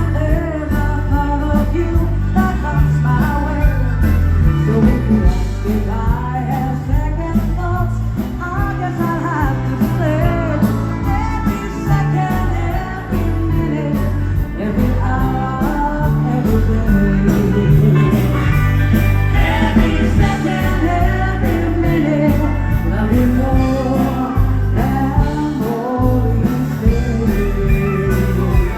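A dance band playing a song live, a singer over a steady beat with bass and guitar in a rock-and-roll, country style.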